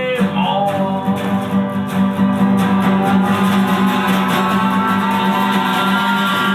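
Lead and rhythm guitars playing a rock jam, strummed steadily, with a sung word held and fading in the first second.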